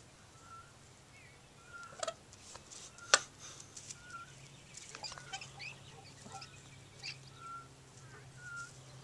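Peafowl giving short, soft peeps about once a second, with a few sharp clicks, the loudest about three seconds in.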